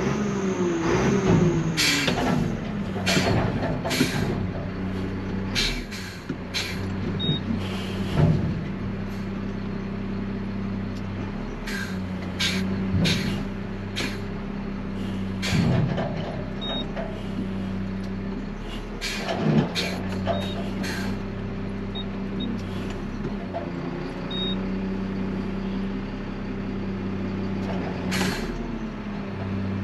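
Garbage truck's diesel engine running with a steady hum while the truck services a dumpster, the revs dropping in the first few seconds and then rising and falling several times. A string of sharp clanks and hisses comes through the first twenty seconds, with one more near the end.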